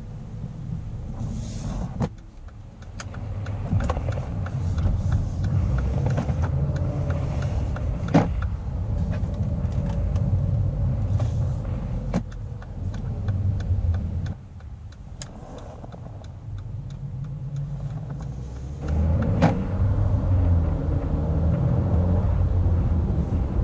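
Mercedes-Benz GLA 200's turbocharged four-cylinder petrol engine and road noise heard from inside the cabin while driving, the level easing off twice and building again with the throttle. A few sharp knocks stand out over the rumble.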